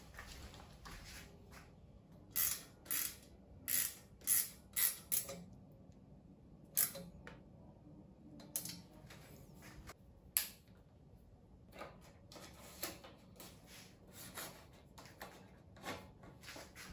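Sharp metal clicks and taps from bicycle parts and hand tools being handled while a rim brake caliper is mounted on a road bike frame. A quick run of about six clicks comes a couple of seconds in, then single clicks a few seconds apart, then fainter taps.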